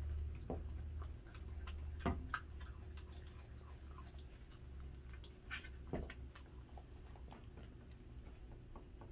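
Dachshund chewing raw chicken: irregular wet clicks and crunches, with louder crunches about two seconds in and again about six seconds in, over a steady low hum.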